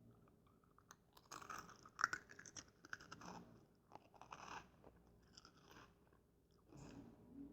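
Fritos corn chips being chewed close to the microphone: a run of crisp crunches, loudest about two seconds in, dying away by about five seconds, with a few more crunches near the end.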